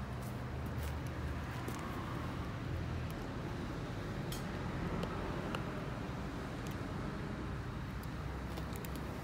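Steady low rumble of motor traffic, with faint scattered clicks and ticks over it.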